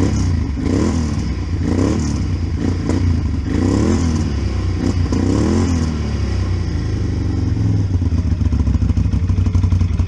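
Can-Am Outlander ATV engine running through a newly fitted MBRP slip-on exhaust. It is revved up and back down about four times in the first six seconds, then idles steadily.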